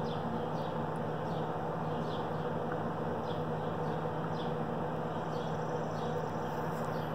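Outdoor background: a steady low hum with faint bird chirps about once a second.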